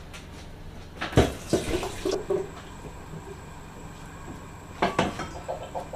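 Kitchen tap water running briefly into a stainless-steel pot at the sink, with a sharp metal knock about a second in and another short clatter of the pot near the end.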